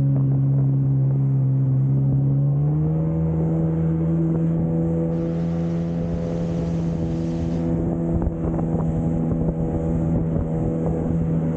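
Jet ski engine running under way, a steady drone that steps up in pitch about three seconds in as engine speed rises, then holds. Water spray hisses along the hull beneath it.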